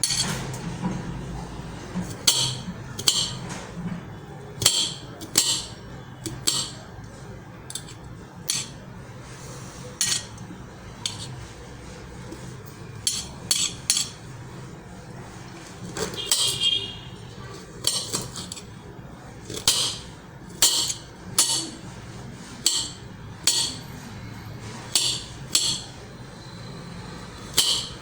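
Kitchen utensils and dishware clinking, a series of sharp, irregularly spaced clinks every second or so.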